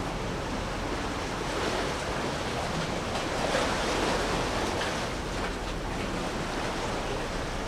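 Sea water washing and rushing steadily, with a louder swell of surf about halfway through.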